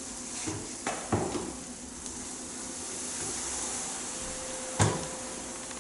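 Buttered sandwiches sizzling in a hot lidded sandwich grill, a steady hiss, with a few light knocks about a second in and once near the end.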